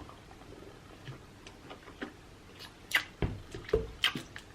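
Someone gulping and swallowing soda fast: faint wet clicks and a few soft low thumps, sharper and more frequent in the second half.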